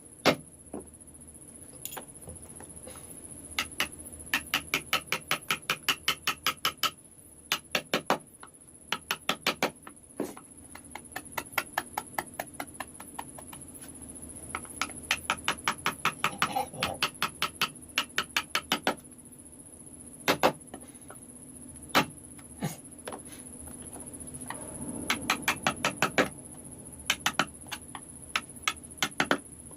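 A mallet tapping a carving chisel into wood in quick runs of about four sharp taps a second, with short pauses between runs and a few single harder strikes.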